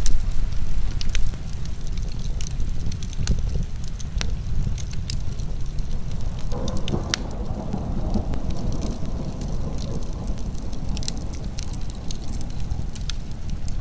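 Wood fire crackling, with frequent sharp pops over a steady low rumble of heavy rain. About six and a half seconds in, a rushing hiss joins and carries on.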